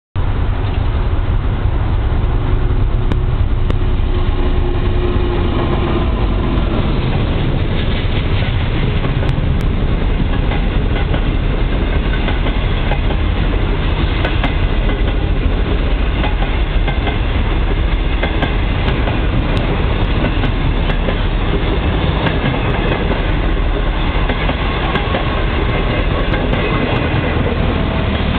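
DF11 diesel-electric locomotive hauling a train of 25Z passenger coaches past, the coaches rolling by close with their wheels clacking steadily over the rail joints.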